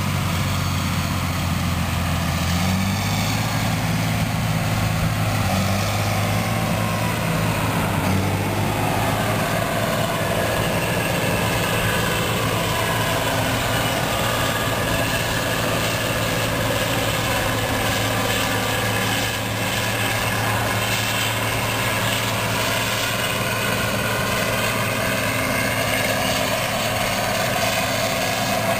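Large diesel engine of harvest machinery running steadily under load, its pitch stepping up slightly a few seconds in, with a steady whir of machinery over it.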